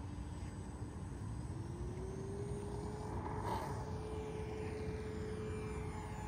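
Radio-controlled E-2D Hawkeye model airplane's motors and propellers running up for its takeoff run: a steady whine that rises in pitch about a second and a half in and then holds. It is loudest about three and a half seconds in, as the plane lifts off and passes.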